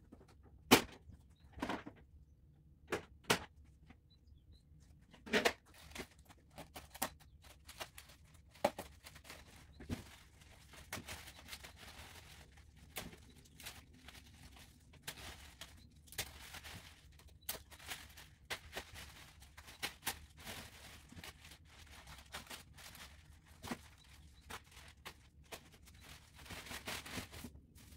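A few sharp plastic clicks and knocks as the stock grille of a 2014 Range Rover is unclipped and pulled off. From about ten seconds in, steady crinkling and rustling of plastic wrap and foam packing as the replacement grille is unwrapped.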